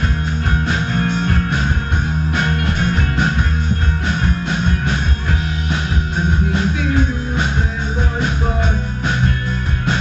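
Rock band playing live: electric guitars, bass guitar and drums, loud and continuous.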